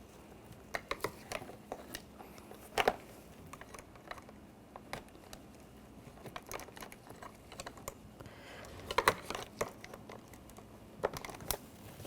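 Scattered sharp plastic clicks and taps as the interior door handle is worked out of the door panel, its retaining clips pressed in with a pick. A louder quick cluster of clicks comes about nine seconds in.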